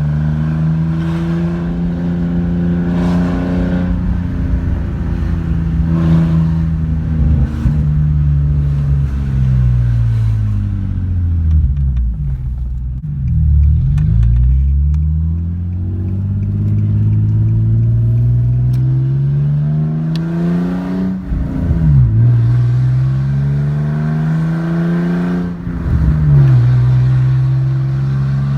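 Nissan 350Z's V6 engine accelerating and slowing during repeated runs to bed in new brake pads. The engine's pitch falls for a few seconds near the middle, then climbs steadily, with two sudden drops at gear changes later on.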